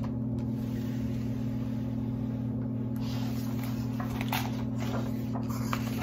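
Steady low electrical hum, with faint rustles and light taps of a picture book's paper pages being handled and turned in the second half.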